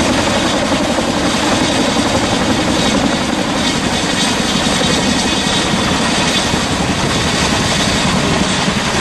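Boeing CH-47 Chinook twin-engine, tandem-rotor helicopter running: a loud, steady rotor and engine noise with a fast flutter.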